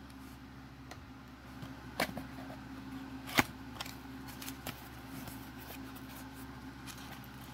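A hobby knife slitting the tape on a small cardboard box, then the cardboard flap being pulled open: a few sharp clicks and light scrapes, the loudest about three and a half seconds in. A faint steady hum runs underneath.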